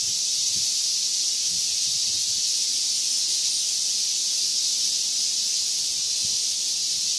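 Chorus of cicadas making a steady, high-pitched hissing drone.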